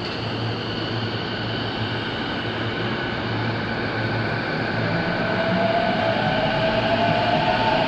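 JR East E233 series 2000 electric commuter train pulling away, a steady electrical hum and running noise. About five seconds in, the motor whine rises in pitch as it accelerates.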